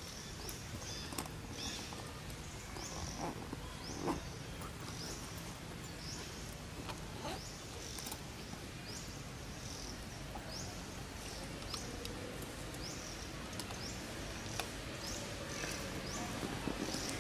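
A bird calling: a short high chirp repeated at an even pace, about once every two-thirds of a second, over a steady outdoor background hiss, with a few faint rustling clicks.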